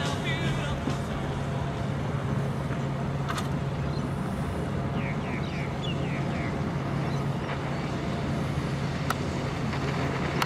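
Outdoor ambience: a steady low hum under an even rushing noise, with a few faint high chirps about halfway through. The tail of a rock song fades out at the very start.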